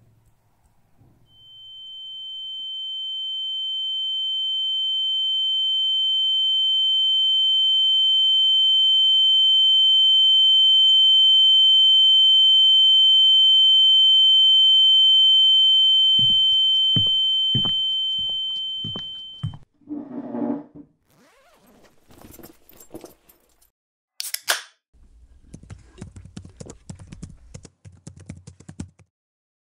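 A steady high-pitched ringing tone swells in, holds for about eighteen seconds, then fades and stops: an ear-ringing effect that stands for shock. After it come scattered knocks and clicks, a short sharp hiss, and a run of quick ticks.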